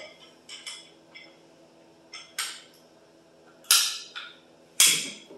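Several short, sharp knocks and clinks of power tools being handled and set down on a steel welding table, the two loudest near the end.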